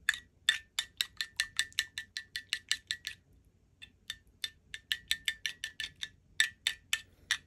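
Metal spoon clinking against a ceramic dish while stirring a thick sauce, quick strokes about six a second. The clinking stops for a moment about three seconds in, then carries on.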